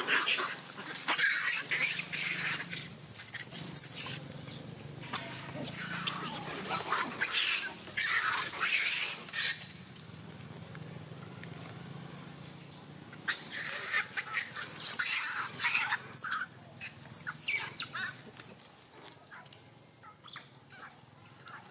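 Baby macaque screaming in repeated harsh, high cries, in two long bouts with a lull in the middle, then fading to a few faint cries near the end.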